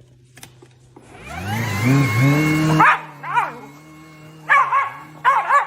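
A dog barking in a string of short barks, some in quick pairs, over a steady hum. The barks follow a loud whirring noise that rises in pitch and cuts off suddenly about three seconds in.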